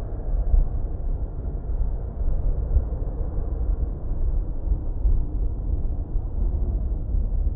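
Low, uneven rumble with no clear pitch, heaviest in the deepest range and fading out above the middle pitches, swelling and dipping irregularly.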